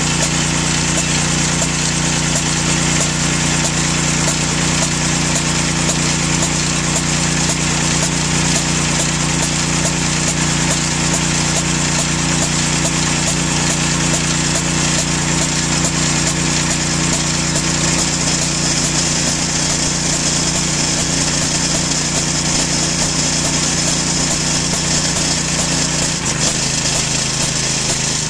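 Harbor Freight Predator 212cc single-cylinder four-stroke engine running steadily, driving a military air compressor that is pumping up its tank as the pressure climbs past 150 psi. The running note drops slightly near the end.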